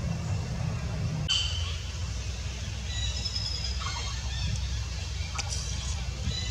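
A few faint, short high-pitched squeaks from an infant long-tailed macaque, over a steady low rumble.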